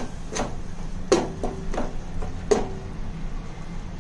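Metal spoon clinking against a cooking pan as a masala is stirred: about five separate knocks, two of them ringing briefly.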